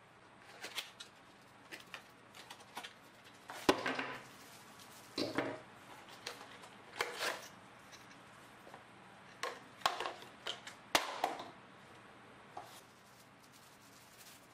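Cardboard box and plastic wrapping being handled and opened: scattered rustles and scrapes of packaging, with a few sharp knocks as the box is set down or tapped.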